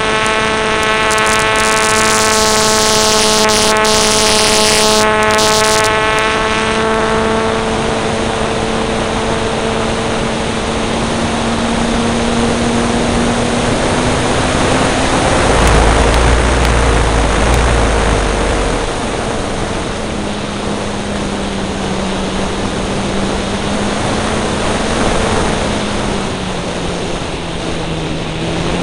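A model aircraft's motor and propeller, heard from the plane itself as a steady pitched drone. The pitch creeps up a little, then drops near the end. After several seconds, loud wind rush over the microphone swamps the drone, with a heavy low buffeting around the middle.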